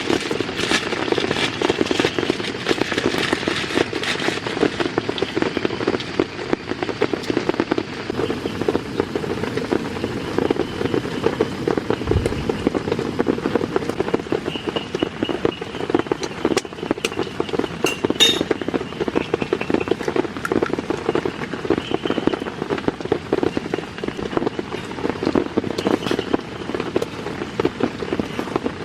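Heavy rain falling steadily, a dense, even spray of raindrops hitting a surface close by.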